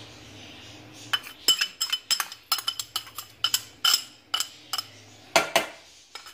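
Metal spoon clinking and scraping against a metal cooking pot while thick milk and vermicelli are stirred: after about a second, a quick run of sharp metallic taps, two or three a second, which stops near the end.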